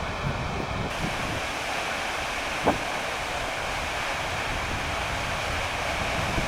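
Steinsdalsfossen waterfall rushing steadily, with wind buffeting the microphone. A single brief knock about a third of the way in.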